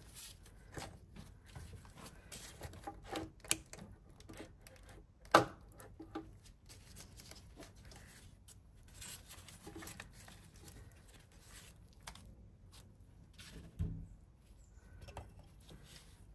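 Hand tools and metal engine parts being handled during an intake manifold removal: scattered clicks and knocks, with one sharp click about five seconds in and a dull thump near the end.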